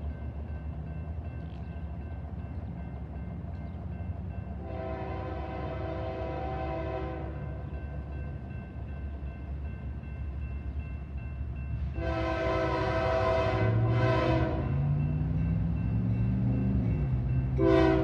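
Union Pacific freight locomotive's air horn sounding the grade-crossing signal as the train approaches: two long blasts, a short one, and a final blast starting near the end, over a steady low rumble that grows louder.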